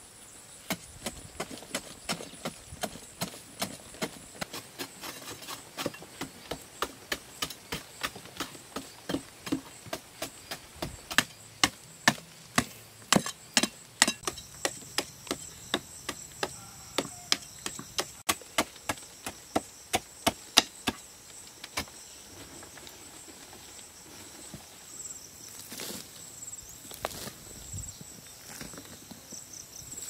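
Hand digging tool striking hard-packed earth over and over, about two blows a second, the blows growing heavier midway and giving way to a few scattered knocks about two-thirds of the way through. A steady high insect drone runs behind.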